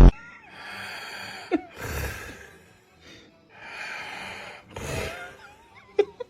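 A sleeping person snoring: noisy breaths in and out about once a second, with snorts, a short lull in the middle and a brief whistly squeak near the end.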